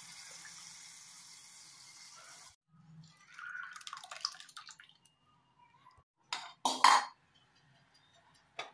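Hot oil tempering of mustard seeds and curry leaves sizzling steadily in a small metal pan, cut off abruptly, then the tempering poured into a bowl of tamarind rasam with liquid splashing. Two sharp metal clinks follow a few seconds later.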